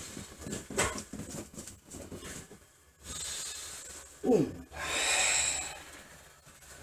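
Forceful Sanchin kata breathing. A hissing breath starts about three seconds in, then a short grunt falling in pitch and a long, loud hissing breath out, after a stretch of small knocks and rustles of movement.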